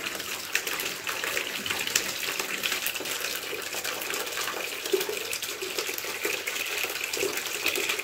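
Water pouring steadily out of an opened panel radiator into a plastic basin as the clogged central-heating radiator is flushed of its black sludge.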